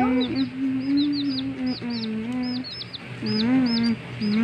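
Baby chicks peeping: a rapid, continuous string of short, high-pitched peeps, about four to five a second. Underneath runs a lower, drawn-out humming voice.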